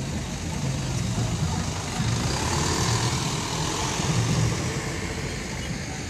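Rental box truck driving past close by, its engine running with a low drone. The sound swells to its loudest about two to four and a half seconds in as the truck goes by, then eases off.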